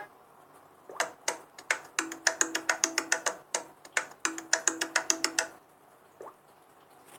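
An iPhone ringtone: a quick rhythmic pattern of short, woodblock-like struck notes over a lower repeating note. It plays for about four and a half seconds and stops, followed by one faint short rising blip.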